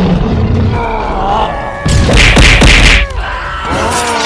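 Cartoon fight sound effects: a loud impact about two seconds in, the loudest thing here, lasting about a second, as a character is struck and sent flying.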